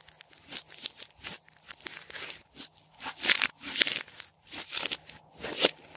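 Hands kneading and pressing floam slime full of foam beads, giving crunchy crackles and sticky squelches in irregular bursts, loudest a few times in the second half.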